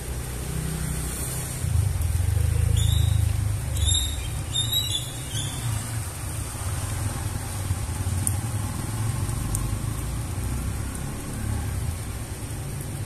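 Rain falling steadily on concrete ground, with a low rumble that swells about two seconds in and eases off after about five seconds, and a few short high chirps in the middle.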